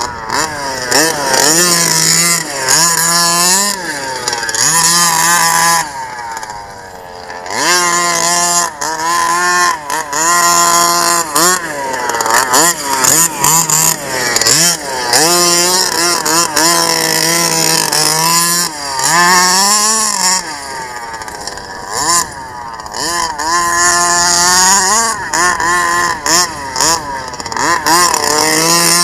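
King Motor T1000 1/5-scale RC truck's two-stroke petrol engine revving up and dropping back again and again as the truck is driven over dirt, often held at high revs for a second or so. About six seconds in it falls off briefly to a lower, quieter note before picking up again.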